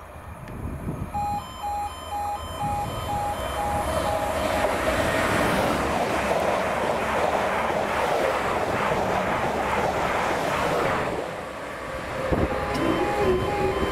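Greater Anglia Stadler FLIRT multiple unit passing close at speed: the rush of wheels on rail swells, holds for several seconds and fades away. A level-crossing warning alarm pulses about twice a second before the train arrives and again near the end.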